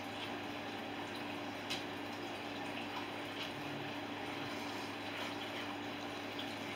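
Steady background hum with an even hiss, broken by a faint click about two seconds in and a few fainter ticks.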